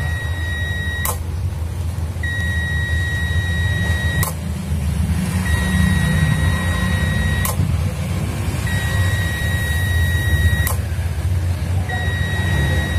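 Prolink UPS alarm buzzer sounding long, steady beeps of about two seconds each, repeating roughly every three seconds, each cut off by a sharp click, over a steady low hum. The unit will not power up even with a new battery fitted.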